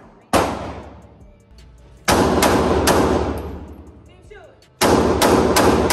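9mm semi-automatic pistol fired on an indoor range: a single shot, then a quick string of three, then another quick string of four, each shot ringing out in a long echo off the range walls.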